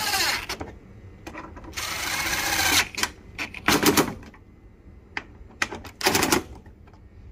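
DeWalt cordless impact driver running on bumper-bracket bolts in several short trigger pulls. The motor spins down just after the start, runs for about a second about two seconds in, and gives two short rattling hammering bursts near four and six seconds.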